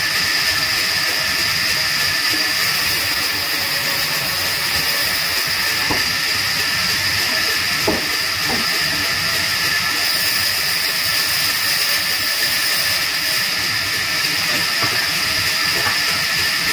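Band saw running and cutting through thick wooden stock, a steady even hiss.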